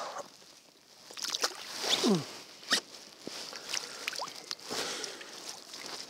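Light splashing and sloshing of shallow water as a large crucian carp is let go by hand at the water's edge, with a few short, sharp splashes about one and a half to three seconds in.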